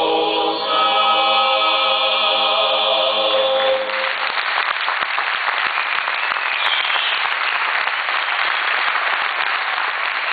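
Male a cappella group singing Corsican polyphony, holding a long chord that cuts off about four seconds in, followed by audience applause.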